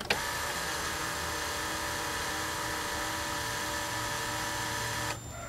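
Electric fuel pumps of a Marine Power 5.7 fuel-injected engine running a key-on priming cycle before cranking: a steady electric whine that starts at once and cuts off after about five seconds.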